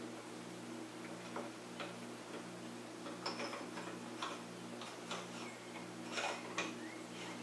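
Featherlite aluminium scroll chuck being tightened onto a wood block with its T-handle chuck key: scattered light metal clicks and taps at uneven intervals, a few in quick pairs, over a steady low hum.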